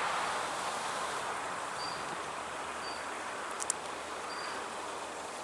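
Honeybees buzzing in a steady hum around an open hive while brood frames are being inspected, with faint short high chirps about once a second and one small click a little past the middle.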